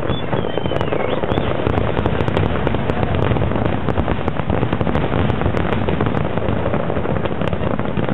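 Fireworks display: a dense, continuous barrage of aerial shell bursts and crackling, with no let-up.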